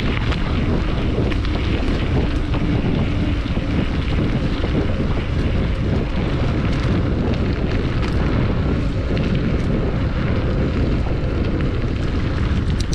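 Wind buffeting the microphone and bicycle tyres rolling over a dirt and gravel forest track, a steady low rumble with small rattles and ticks now and then.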